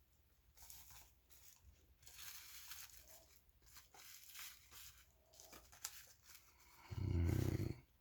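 Shipping packaging being handled and torn open: scattered rustling and tearing, with a louder low rumble, under a second long, near the end.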